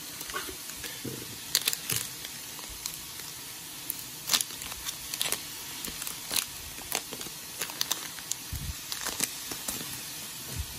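Foil booster pack wrapper crinkling as it is pulled from the box and torn open, in a run of irregular sharp crackles over a faint steady hiss.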